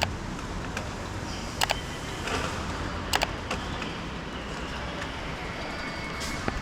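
A few sharp metallic clicks, three of them about a second and a half apart, over steady workshop and traffic noise. These are tools and fittings at work as the bolted-on front accessory guards are taken off a scooter.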